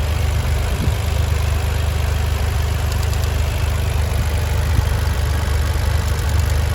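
2023 Toyota GR Corolla's 1.6-litre turbocharged three-cylinder engine idling steadily, with a little extra ticking from the engine compartment whose source the owner cannot find.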